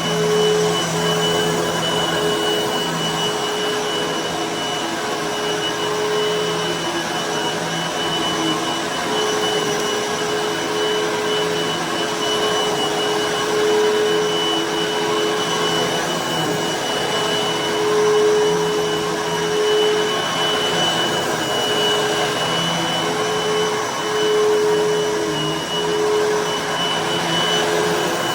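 Hoover vacuum cleaner running continuously over carpet: a steady motor and airflow drone with a high whine, swelling and easing slightly as it is worked across the floor.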